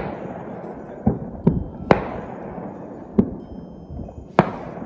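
New Year's fireworks going off in the surrounding neighbourhood: about six sharp bangs, each echoing away, over a steady low rumble.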